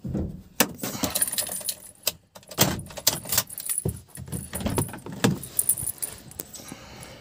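Car keys jangling on their ring, with scattered clicks and knocks from handling.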